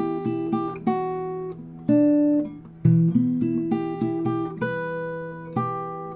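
Solo acoustic guitar fingerpicked, bass notes and a plucked melody left ringing over one another, with a fresh picked chord about once a second.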